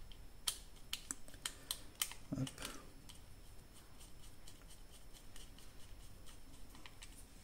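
Crosshead screwdriver turning small screws into a plastic tracking-unit housing, with faint, irregular small clicks and scrapes of the tip in the screw heads and a soft knock about two and a half seconds in.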